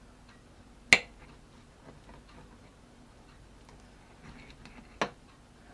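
Cutlery clinking sharply against a plate twice, about a second in and again near the end, with faint scrapes and taps in between, as a cooked hasselback potato is cut.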